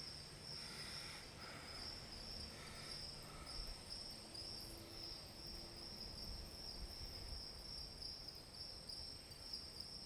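Faint, steady chorus of insects, such as crickets, chirping in a high, even pulse.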